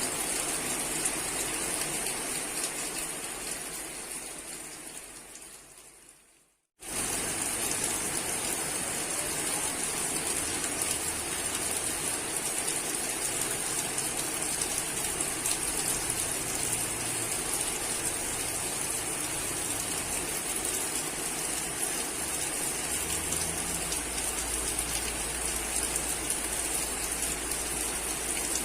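Steady rushing hiss, like running water or rain, that fades out over a few seconds, stops briefly about seven seconds in, then comes back and runs on evenly.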